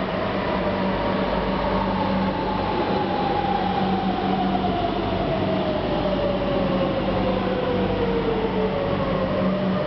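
Madrid Metro electric train pulling into an underground station and slowing down, with steady running noise. Its motor whine falls gradually in pitch as it brakes and levels off near the end.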